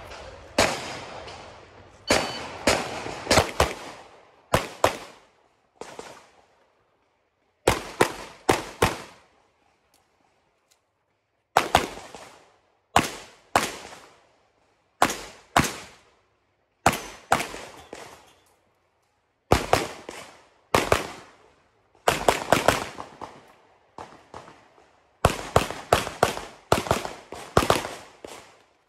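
Handgun shots fired in quick pairs and strings of three or four, with pauses of a second or two between strings, each shot trailing off in an echo.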